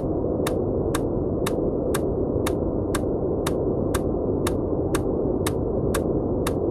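Steady deep, muffled white noise with a short, sharp tick repeating evenly about twice a second: the EMDR bilateral-stimulation clicks laid over the noise.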